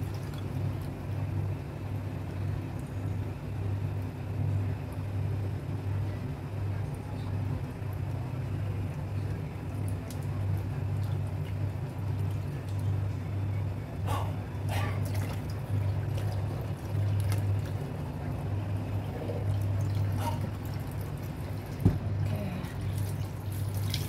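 Water running steadily into a pig's lung through its windpipe in a sink, filling and swelling the lung as it is washed, with a steady low hum. A few faint drips, then a single sharp knock near the end.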